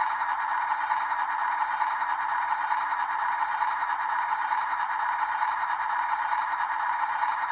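Steady rattling whir of a small electric motor and gearbox running continuously, with a thin high whine on top.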